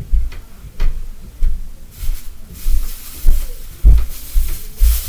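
Heavy footsteps stomping across the floor in a neighboring unit, coming through as a steady run of dull low thuds a little under two a second, with a brief hiss twice.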